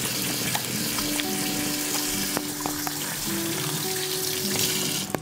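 Egg frying in butter in a carbon steel skillet: a steady sizzle with scattered small crackles. Background music with held notes plays underneath.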